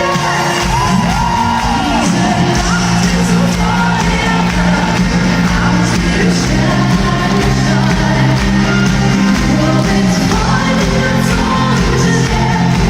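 Live pop band music in a large arena, steady and loud, with sung lines and shouts from the crowd.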